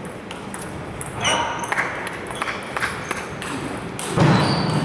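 Table tennis doubles rally: quick clicks of the ball off paddles and table, with short high squeaks from players' shoes on the court floor. A louder burst of noise near the end, as the point finishes.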